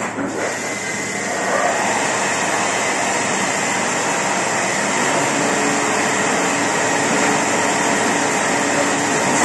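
Adast Dominant 847 four-unit sheetfed offset press running with sheets feeding through, a steady mechanical noise that grows somewhat louder over the first second or two and then holds level.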